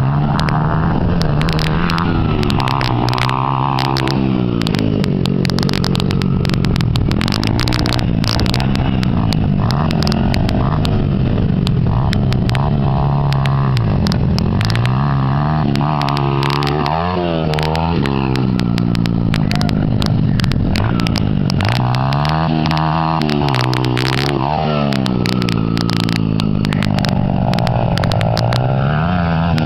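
Small four-stroke single-cylinder dirt bikes, a Honda CRF80 and CRF100, revving up and down as they ride, the engine pitch rising and falling again and again. Many sharp crackles sit on top of the engine sound.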